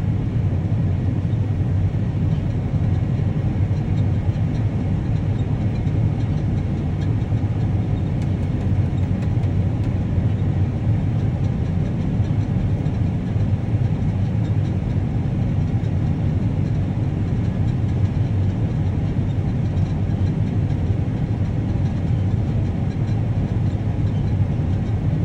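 Farm vehicle engine running steadily: a low, even rumble that does not change.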